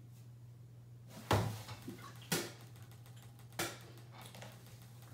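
A person gagging in three sharp bursts about a second apart, the first the loudest, in disgust at the taste of bacon-flavoured cotton candy. A steady low electrical hum runs underneath.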